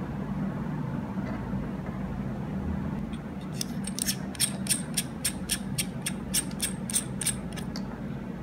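The threaded battery capsule of a Boya BY-M1 lavalier microphone being twisted by hand, giving a run of quick, sharp clicks, about four a second, that starts a few seconds in and lasts about four seconds.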